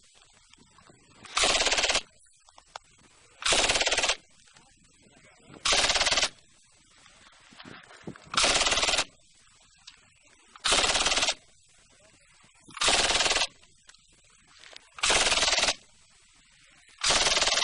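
Light machine gun firing eight short bursts, each about half a second long, at a steady pace of roughly one burst every two seconds.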